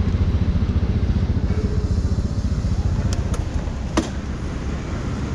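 Motor scooter engine idling with a steady, fast low pulsing. A sharp click comes about four seconds in, with fainter ticks just before it.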